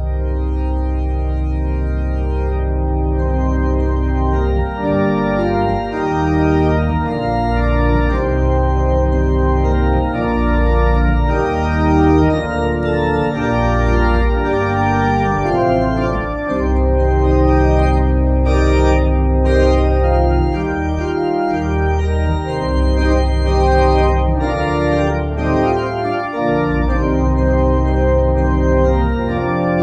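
Church organ played with sustained full chords over deep held pedal bass notes that change every second or two.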